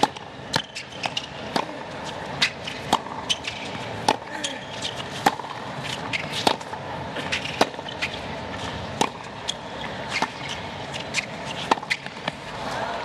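Tennis rally on a hard court: the ball is struck by racquets and bounces, sharp pops every second or so, over steady crowd noise. Near the end the crowd noise swells as the point finishes.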